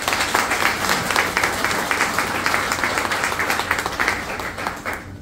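Audience applauding: many hands clapping together at a steady level, dying away near the end.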